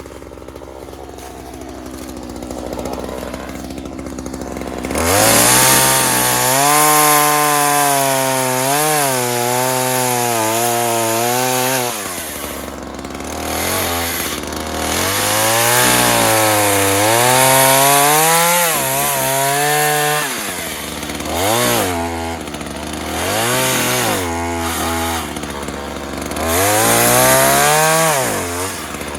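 Ryobi two-stroke chainsaw idling, then opened to full throttle about five seconds in and cutting into a small tree, its pitch sagging and recovering as the chain bites. It drops back to idle between cuts, with two short throttle blips before a last cut near the end.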